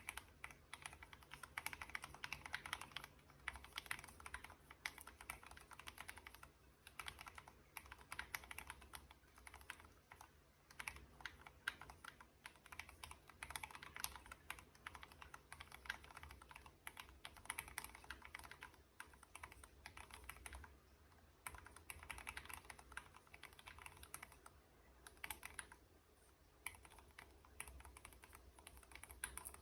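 Typing on a Royal Kludge RK61 mechanical keyboard with Gateron Pro Brown tactile switches: fast runs of keystroke clicks in bursts of a few seconds, with short pauses between them.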